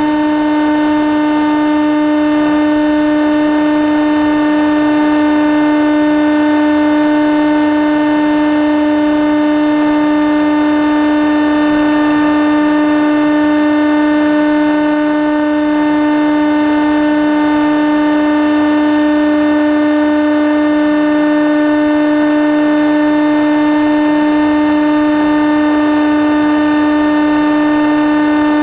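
Model aircraft's motor and propeller heard from the onboard camera: a steady hum held at one unchanging pitch, over a haze of air rush.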